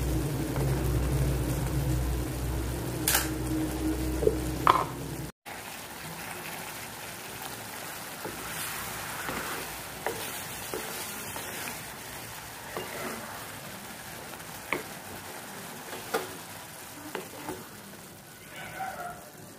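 A loud, low, steady hum for about the first five seconds, cut off suddenly. Then a wooden spatula stirs and scrapes vegetable curry in a wok, knocking against the pan now and then, over a quiet sizzle of frying.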